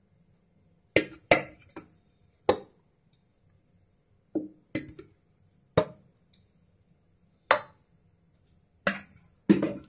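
About nine sharp knocks, spaced irregularly about a second apart, each ringing briefly: a serving spoon striking the rim of a metal cooking pot as cooked basmati rice is spooned in a layer over chicken curry in a pressure cooker.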